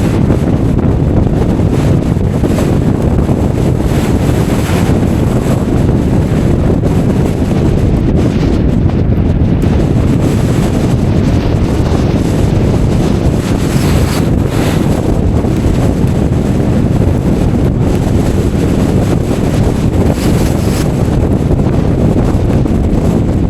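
Strong storm wind buffeting the microphone: a loud, steady, low rumble, with gusts that brighten into a hiss a few times.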